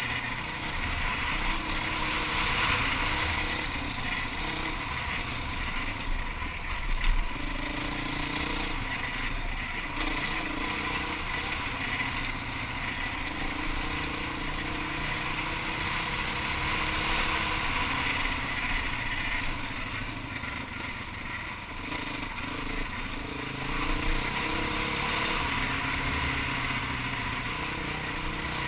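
Enduro motorcycle engine running under way on a gravel track, with wind noise on the helmet-mounted microphone. The engine pitch shifts up and down with the throttle, and there is a brief louder knock about seven seconds in.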